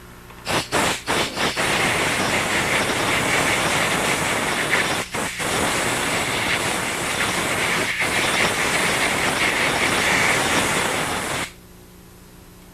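Compressed air blowing out metal filings and plastic debris left inside an endoscope's control body: a few short puffs, then a long steady hiss with two brief breaks, cutting off about a second before the end.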